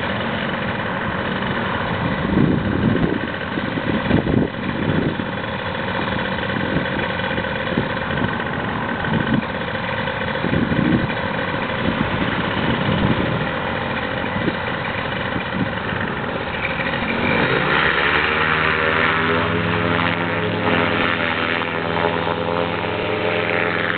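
Paramotor engine and propeller running at low throttle, then revved up about 17 seconds in and held at a higher, steady pitch for the takeoff run.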